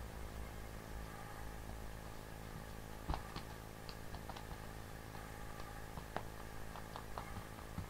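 A cat batting at a toy goldfish on a string across a woven carpet: scattered light taps and scratches of paw and toy, the loudest about three seconds in and again about six seconds in, over a steady low hum.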